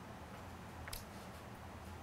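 Quiet room tone: a low steady hum under faint hiss, with one short faint click about a second in.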